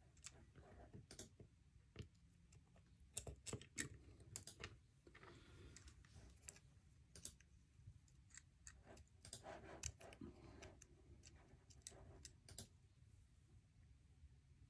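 Faint, irregular clicks and light taps of small metal parts as a Zero Tolerance 0562 folding knife's pocket-clip screw and backspacer are handled and fitted by hand.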